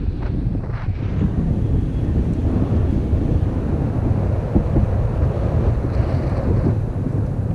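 Wind rushing over an action camera's microphone in the airflow of a tandem paraglider in flight: a steady, low rumbling buffet.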